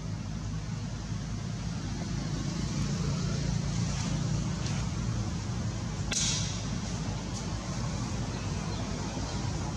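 Steady low rumble of outdoor background noise, with one sharp click followed by a brief hiss about six seconds in.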